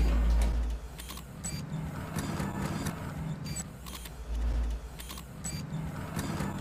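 An elevator car hums and rumbles, with light ticks throughout. Its steel doors slide open in the second half.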